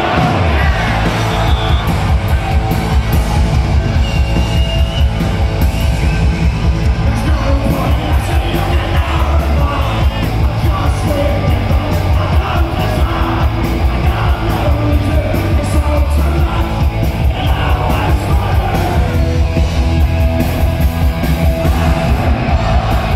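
A punk rock band plays live and loud with distorted electric guitar, drums and shouted singing, recorded from within the crowd. The full band comes in at the very start after a short break.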